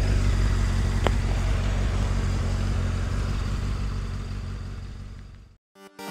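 Benda LFC700's four-cylinder engine idling steadily, fading out over the last couple of seconds. Music starts just before the end.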